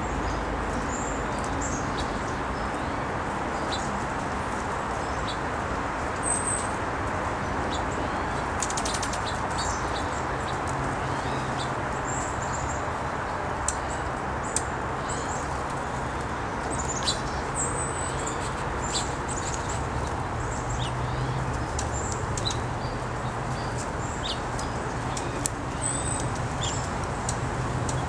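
Small songbirds chirping in short, high, scattered calls over a steady background rush with a low hum, and a few sharp ticks.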